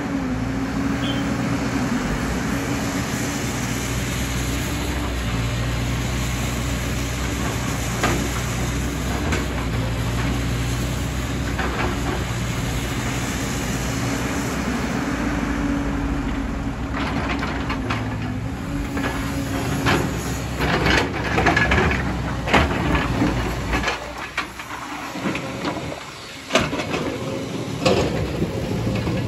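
JCB tracked excavator's diesel engine running under load, with a steady hydraulic whine that rises and falls as the boom works. About two thirds of the way in, a run of sharp knocks and clatter begins, as rock lands in the dump truck's steel bed. Near the end the loaded dump truck's engine is heard as it drives away.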